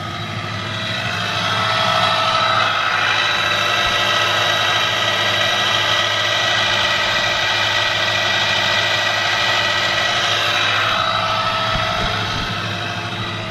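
Angle-grinder universal motor driving a small outboard's propeller on 24 volts: a steady electric whine with many even tones. It builds over the first two seconds and eases off a little near the end.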